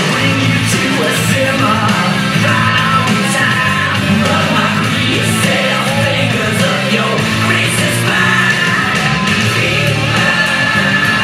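Loud rock music with singing, playing without a break.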